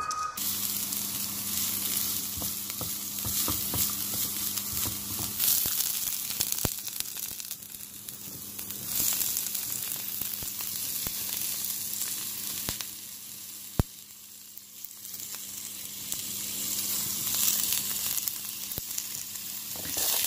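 Shredded cabbage and sliced bell peppers sizzling as they fry in oil in a non-stick frying pan, with a wooden spatula scraping and clicking against the pan as they are stirred. One sharp knock comes a little past the middle, and a low steady hum runs underneath.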